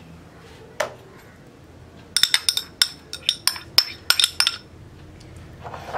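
Metal spoon tapping and scraping against a small ceramic dish to knock out chopped onion: a single knock just under a second in, then a quick run of bright clinks lasting about two seconds.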